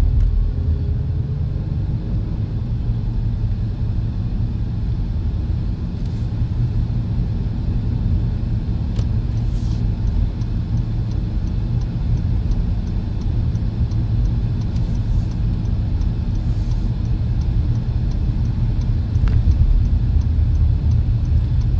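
Road noise inside a moving car's cabin: a steady low rumble of the engine and tyres.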